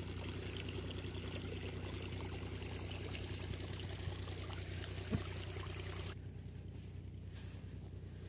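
Irrigation water running along a wide earthen channel, over a steady low hum. The hiss of the water drops away suddenly about six seconds in.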